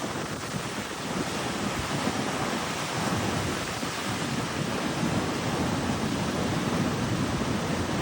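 Ocean surf breaking and washing up the shore in a steady rush, with a low rumble of wind on the microphone.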